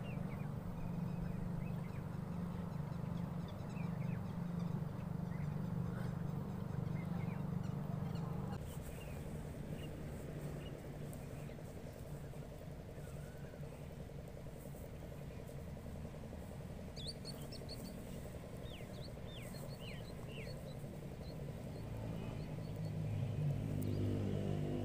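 Outdoor ambience: a steady low rumble of distant traffic that drops about eight seconds in, a few short bird chirps in the second half, and a motor vehicle engine passing close by near the end.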